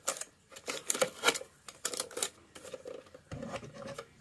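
Handling noise from a metal-cased CD-ROM optical drive being turned over and set down: a string of sharp clicks and light knocks, some from a screwdriver tapping the case, with a duller thump and some rubbing near the end.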